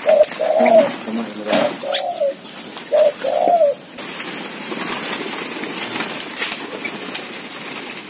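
Doves cooing: repeated phrases of a short note followed by a longer, arched coo. After about four seconds the cooing stops, leaving a steady low hiss with light clicks and faint chirps.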